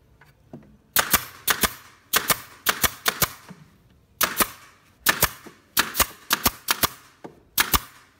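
Pneumatic nail gun firing again and again, driving fasteners into a wooden cabinet frame: sharp cracks, often in quick pairs, about two to three a second, starting about a second in with a short pause near the middle.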